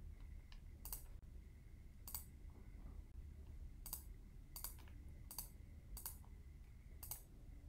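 Faint, irregularly spaced clicks of a computer mouse and keyboard in use, about eight of them, over a faint steady background hum.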